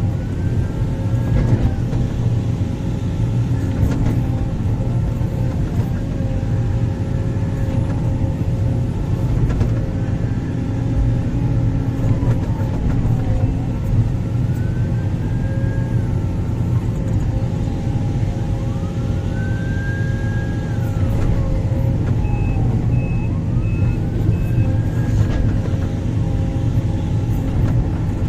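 Sumitomo 490 hydraulic excavator running while it works: a steady diesel engine drone under a hydraulic whine that rises and falls in pitch again and again as the hydraulics take load. About three-quarters of the way through there is a short run of high beeps.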